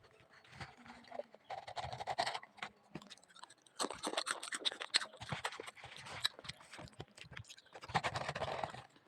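Pringles potato crisps being crunched and chewed close to the microphone, in three crackly bouts with short pauses between.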